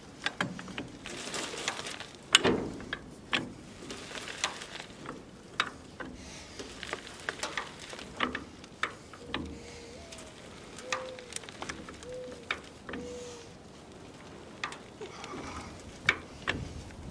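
A 10-ton railroad track jack being pumped by its long steel handle to lift a shipping container: irregular metallic clicks and knocks from the jack's mechanism, with a sharper knock about two and a half seconds in and a few short squeaks about halfway through.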